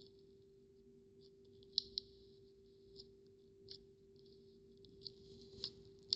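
Slime being squeezed and poked, giving soft crackling clicks and a few sharper pops of trapped air, over a faint steady hum.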